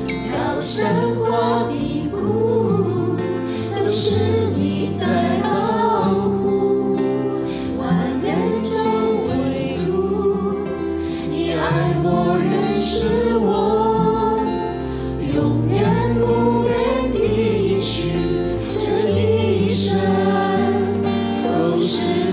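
Chinese worship song sung by several voices together, men and women, over instrumental backing with sustained bass notes and light percussion.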